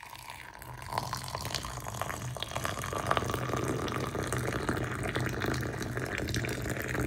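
Mint tea poured from a height in a thin stream into a glass mug of fresh mint leaves, splashing steadily as the mug fills; it builds up about a second in.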